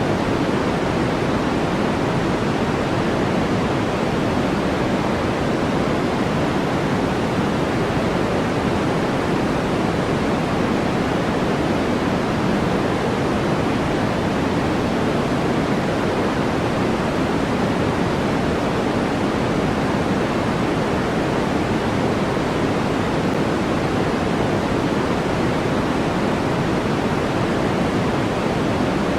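Steady, unchanging synthetic noise from a white-noise sleep track, a constant hiss with no variation. It is fuller in the low and middle range than in the highs, closer to pink noise than flat white noise.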